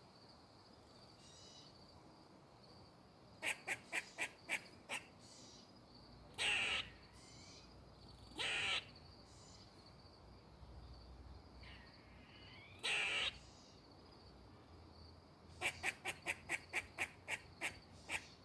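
Tree squirrel alarm calling: runs of short, sharp barks, several a second, with three longer harsh calls between them.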